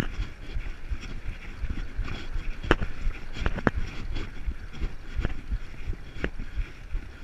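Fat bike rolling over a packed snow trail: a steady rumble of the tyres on snow with the bike rattling over bumps, and a handful of sharp knocks, the loudest nearly three seconds in.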